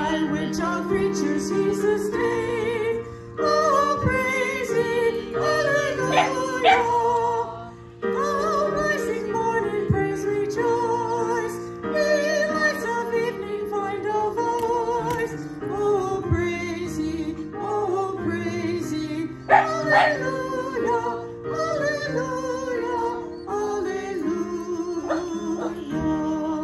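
A woman singing a slow hymn-like melody over sustained electric keyboard chords. A dog barks sharply a few times, loudest about two-thirds of the way through.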